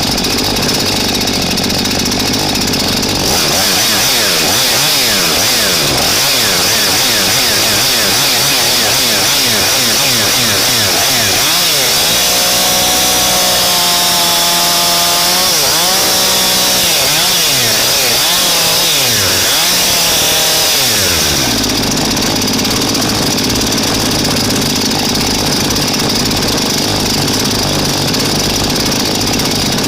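Husqvarna chainsaw's two-stroke engine heard from a camera mounted on the saw: it idles, then revs up and down over and over for about eighteen seconds before dropping back to a steady idle.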